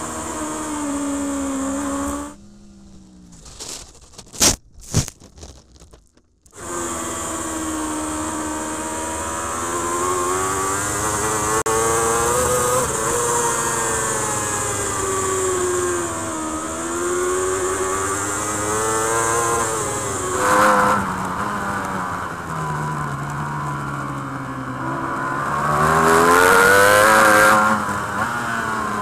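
Onboard sound of a BMW M 1000 RR superbike's inline-four engine at racing speed, its revs rising and falling through gear changes and corners. About two seconds in, the sound drops out for roughly four seconds, broken by a few sharp clicks.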